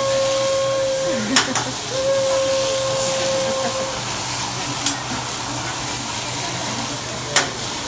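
Food sizzling steadily on a hot teppanyaki griddle while fried rice and vegetables are stirred, with three sharp clicks of the metal spatula against the steel plate. A steady high held note sounds twice in the first half.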